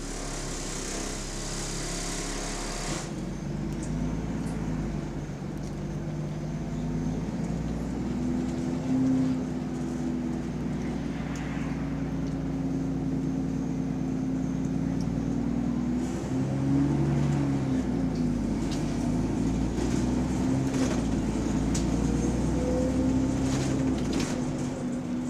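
Bus engine running under way, its note rising and falling as it pulls and changes gear, with the exhaust leak the bus is known for. A high hiss cuts off about three seconds in, and a few sharp clicks come near the end.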